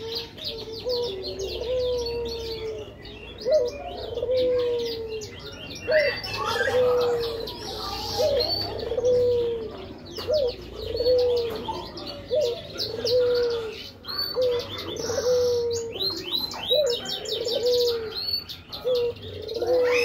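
A dove cooing over and over, a short low coo with a quick upward flick and a falling tail, about once a second. High, quick twittering chirps from a small finch run over it.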